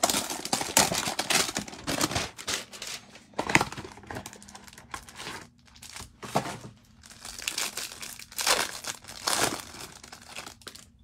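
Packaging of a Mosaic football-card hanger box being torn open and crinkled, in irregular bursts of rustling and tearing.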